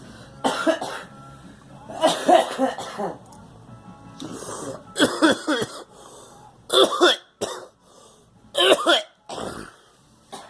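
A person coughing in about five separate harsh fits, some with a throaty, voiced edge, with short quiet gaps between them.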